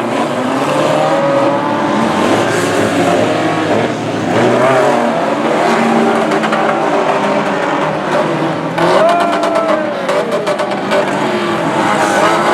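Several banger racing cars racing at once, their engines revving with pitches rising and falling over each other, with a run of sharp clicks and knocks about nine seconds in.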